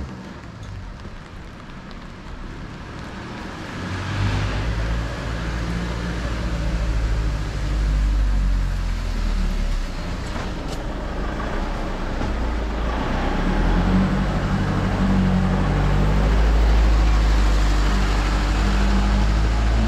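A motor vehicle's engine running close by, getting louder about four seconds in and holding steady, over an even hiss.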